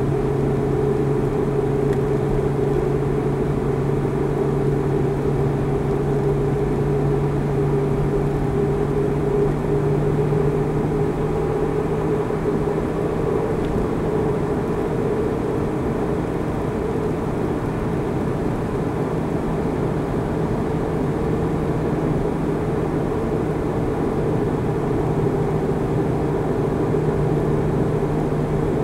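Car cruising at steady motorway speed, heard from inside the cabin: a steady engine drone over tyre and road noise, the drone's pitch rising slightly about halfway through.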